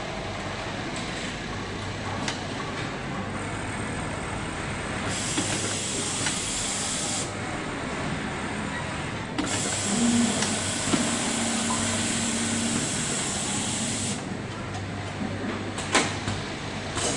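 Automatic placket-setting machine letting off compressed air in two hissing blasts, one about two seconds long and a longer one of about five seconds, over a steady machine hum, with a sharp click near the end.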